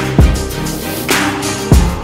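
Background music with a steady, heavy beat.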